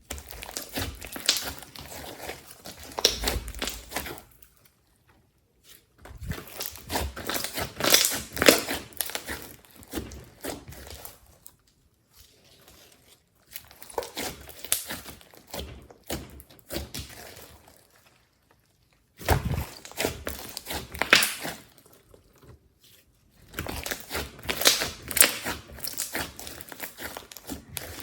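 Hands squishing, stretching and pressing glossy slime with clay and glitter mixed in, making crackling, popping and sticky clicking sounds. The sound comes in five separate stretches with short silent breaks between them.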